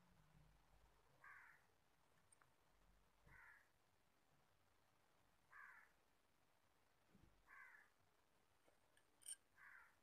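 Faint short animal calls, five of them about two seconds apart, over near silence, with a sharp click near the end.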